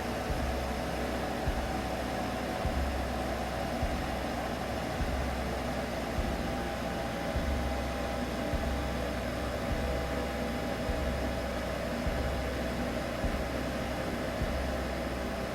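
Steady droning hum over a whooshing noise, with a soft low pulse about every 1.2 seconds: a soothing sleep sound for a baby.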